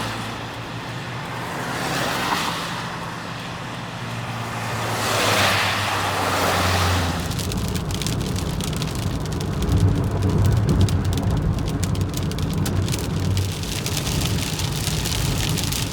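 Car driving in a downpour, with steady engine and road hum from inside the cabin and two whooshes in the first several seconds. From about seven seconds in, big raindrops rapidly pelt the car's roof and windshield.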